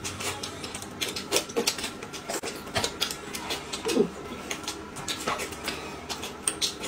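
Eating sounds close to the microphone: irregular crisp crunching and chewing of pan-fried dumplings and fried food, with a couple of short pitched mouth sounds.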